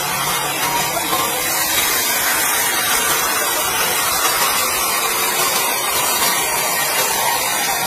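Sawmill saw cutting lengthwise through a large log, a loud, steady hiss that does not break.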